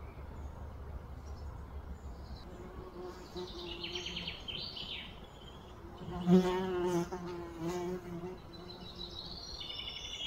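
A flying insect buzzing close by for about three seconds past the middle, its drone wavering in pitch and loudest as it starts. Birds chirp in the background before it and again near the end.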